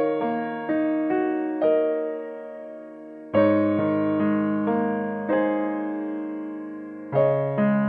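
Background music: a piano or electric piano playing slow, decaying notes, with new chords struck about three and seven seconds in.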